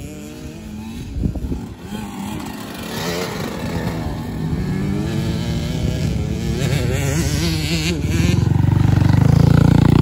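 Small kids' dirt bike engine revving up and down as it is ridden through tight curves on a dirt track, getting louder toward the end.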